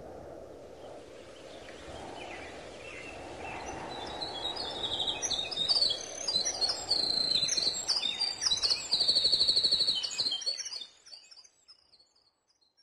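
Birds chirping and trilling over a steady low background noise, growing louder about four seconds in, then fading out near the end.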